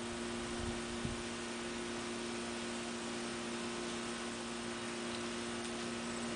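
Electric potter's wheel motor humming steadily, two steady tones over a faint hiss.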